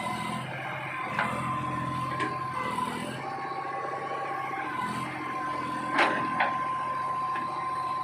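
Massey Ferguson 241 backhoe loader's diesel engine running steadily with a high, even whine, while a few sharp metallic clanks break in, the loudest about six seconds in.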